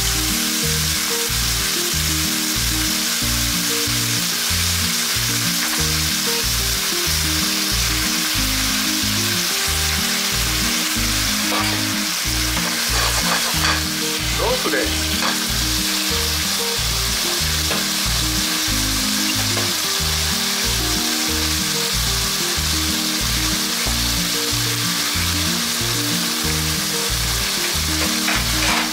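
Chicken pieces frying skin side down in a pan, a steady loud sizzle, with a few brief knocks a little before the middle. Background music with a steady beat plays underneath.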